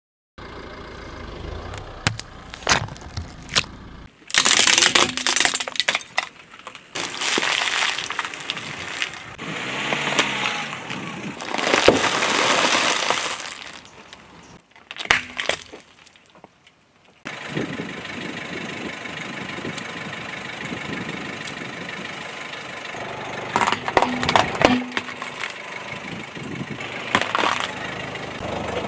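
A car tyre rolling over and crushing objects one after another: a run of crunches, cracks and snaps, separated by short pauses, with a car engine running steadily in the second half.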